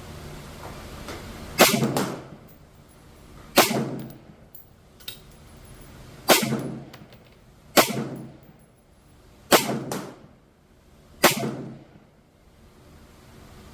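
Six rifle shots from a centerfire rifle, fired one at a time with slow, aimed pacing about two seconds apart. Each sharp crack is followed by a short echo.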